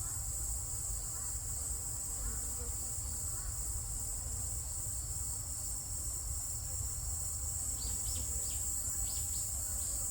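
Insects trilling steadily at a high pitch, typical of autumn crickets, over a low rumble, with a few faint short chirps near the end.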